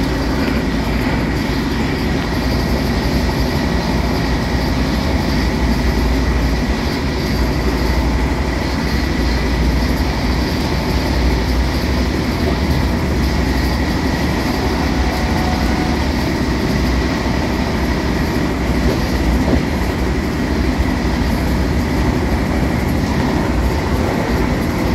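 Vande Bharat Express electric multiple unit running at speed, accelerating past 120 km/h, heard from inside the coach: a steady rumble of wheels on rail, with a faint steady high tone over it.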